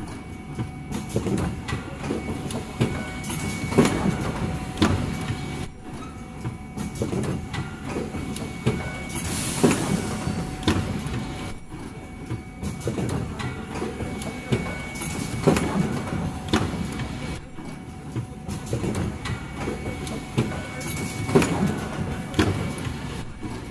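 Automatic cup-mask production line running: its chain conveyor and stations clatter in a steady working cycle over a constant machine hum. A loud clack comes about every six seconds.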